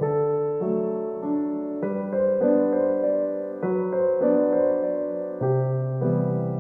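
Gentle background piano music: held chords and a slow melody, each note starting cleanly and fading away.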